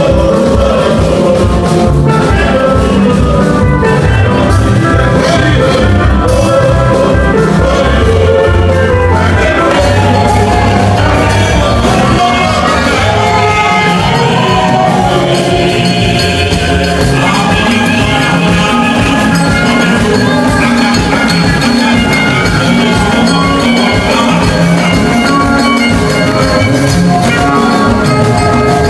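Upbeat background music with a steady drum beat and bright melodic percussion.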